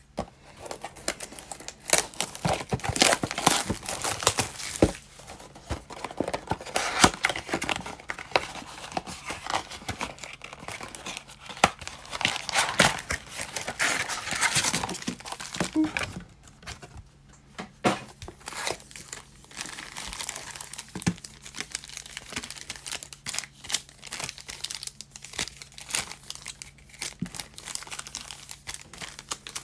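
Foil wrappers of Panini Mosaic basketball card packs crinkling and rustling as they are handled, with some tearing of packaging. The crackling is busiest in the first half and eases off for a few seconds a little past the middle.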